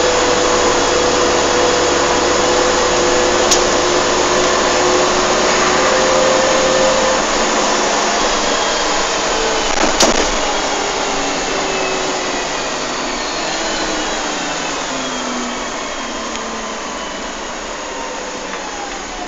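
Volvo Olympian double-decker bus heard from the upper deck on the move: diesel engine and drivetrain whine over road noise, with a sharp knock about halfway through. In the last third the whine falls in pitch and the sound eases off as the bus slows.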